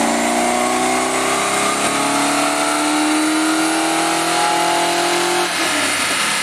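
Rover SD1's 4.3-litre Rover V8, with tubular headers and a stainless twin exhaust, running at full throttle under load on a rolling road. Its note rises steadily as the revs climb toward 4,500 rpm. About five and a half seconds in, the throttle is let off and the note falls away.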